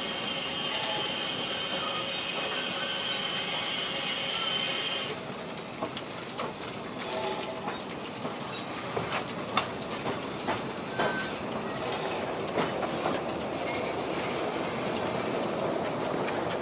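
Narrow-gauge Brigadelok steam locomotive and its open passenger cars rolling slowly past, with a steady steam hiss that stops about five seconds in. After that come irregular clicks and knocks of the wheels over the track.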